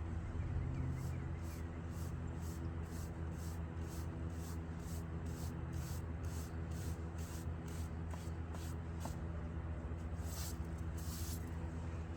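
Rhythmic scraping strokes, about two to three a second, as wet concrete is worked down into cracks in brickwork, with two stronger strokes near the end. A steady low hum runs underneath.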